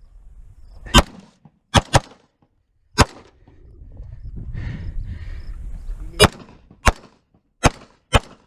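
Eight gunshots at an uneven pace, two of them close together just before 2 seconds in, and three more coming quickly near the end. Between the shots, from about 3.5 to 6 seconds in, there is a low rumbling, shuffling noise.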